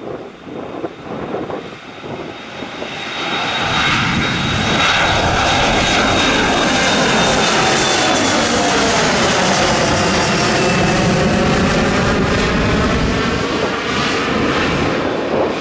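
Embraer 170's twin turbofan jet engines at takeoff power as the airliner passes, growing loud about three seconds in and staying loud, with a high whine that slowly falls in pitch as it goes by.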